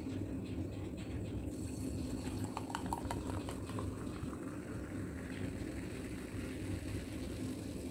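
Thums Up cola being poured from its bottle into a glass, fizzing and foaming as the glass fills; the fizz comes up about a second and a half in. A low steady hum runs underneath.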